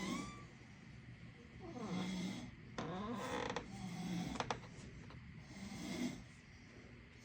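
A person snoring in sleep: a run of rasping snores, one every second or two, with two sharp clicks about four and a half seconds in.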